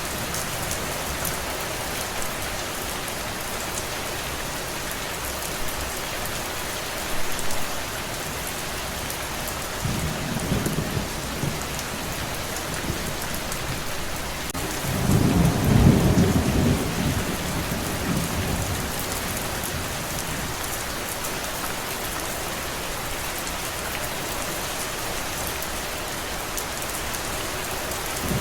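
Steady heavy rain with rolling thunder: a low rumble about ten seconds in, then a louder, longer rumble around the middle that dies away over a few seconds.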